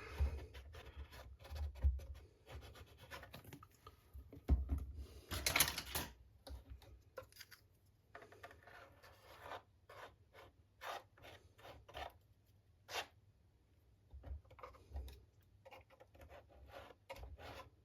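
Light scratching, rubbing and scattered clicks of hands and a glue applicator working along a wooden model boat hull, with a louder scrape about five and a half seconds in.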